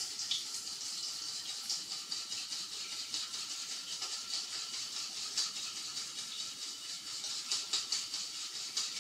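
A spoon stirring quickly in a stainless steel bowl, a steady scraping rattle with many small ticks of metal on metal, a little busier near the end. Water is being stirred into melted beeswax and oil to emulsify it into a cream.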